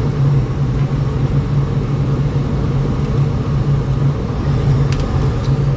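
Rheem gas furnace running, a steady low rumble from the firing burners and fans.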